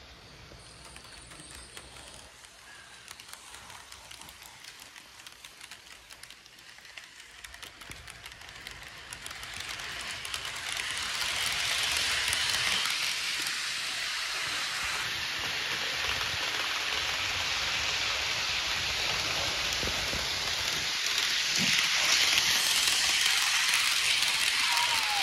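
Model train running on sectional track: its wheels and cars make a steady rattling hiss that grows louder from about ten seconds in as the train passes close by.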